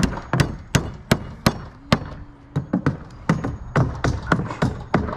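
Hand hammer driving nails into wood: quick, even strikes about three a second, with a brief pause about two seconds in.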